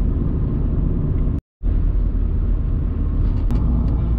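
Steady engine and tyre rumble of an old MPV on the move, heard from inside the cabin. The sound cuts out completely for a split second about one and a half seconds in.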